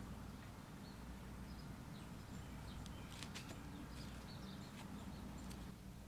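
Faint scattered light clicks and taps over a low steady hum, with a few soft high bird-like chirps.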